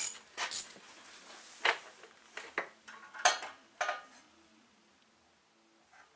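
Metal tool clinks: a socket being fitted to and worked on the rocker-arm adjusting nuts of a small generator engine, a handful of sharp clicks and clanks over about four seconds.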